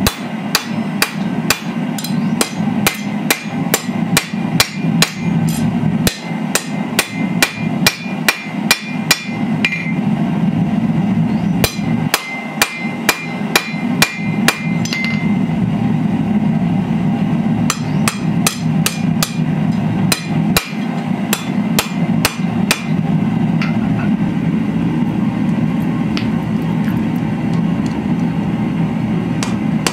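Hand hammer striking red-hot steel on an anvil, sharp blows at about three a second in runs with short pauses, the anvil ringing on some strokes. A steady low hum runs underneath.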